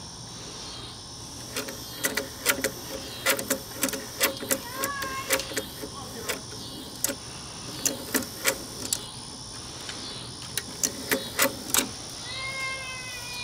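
Nakamichi Unidirectional Auto Reverse cassette mechanism pulling the tape out, turning it over and reloading it: a long run of irregular mechanical clicks and ticks from its gears and levers, stopping shortly before the end.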